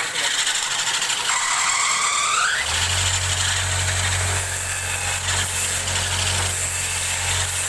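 A machine, most likely the motor of a custom wood lathe, starts up: a short rising squeal, then from about three seconds in a steady low hum as it runs, over a constant hiss.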